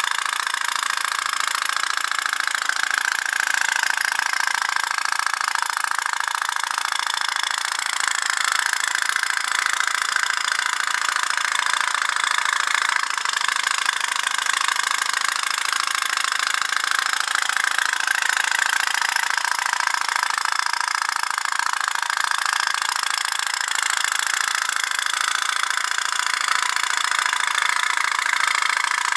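Toy pop-pop (putt-putt) tug boat's flame-heated steam engine running, popping rapidly and steadily in a continuous high putter.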